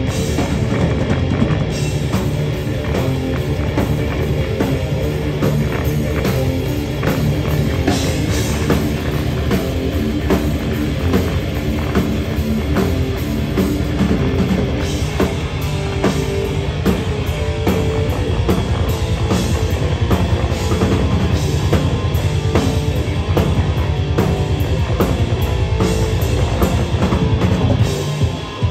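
Heavy rock band playing live, with a drum kit keeping a steady beat.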